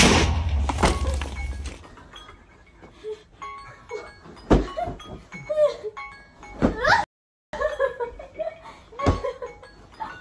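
Pillow fight: pillows thumping against bodies and a mattress in several hits, the loudest right at the start, with high squeals and laughter in between.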